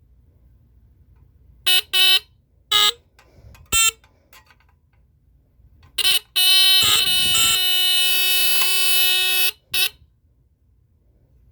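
Vintage 1960s Japanese battery-powered fire and heat alarm horns sounding in a test: several short blasts over the first six seconds, then one steady blast lasting about three seconds, and a last short blast right after it.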